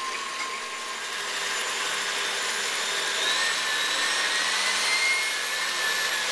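KitchenAid stand mixer running at speed, its wire whip beating whipping cream as the cream thickens. The motor gives a steady whine that rises a little in pitch about three seconds in.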